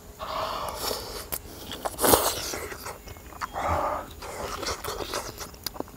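A person chewing and biting into a mouthful of salted grilled eggplant, close to the microphone. The chewing comes in several short spells with small clicks, the loudest about two seconds in.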